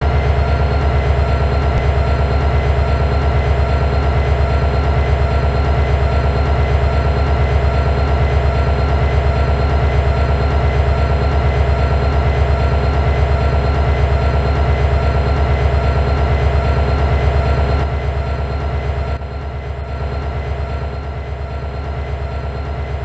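Train running, a loud, steady hum with several constant tones over it; the sound drops in level about nineteen seconds in and cuts off abruptly near the end.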